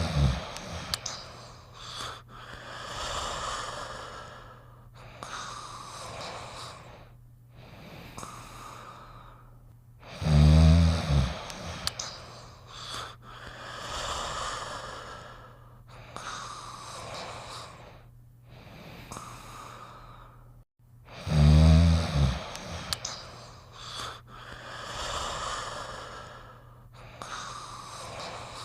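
Cartoon character snoring in a repeating cycle: a loud, low snore comes three times, about eleven seconds apart, and each is followed by several seconds of wheezing, whistling breath out.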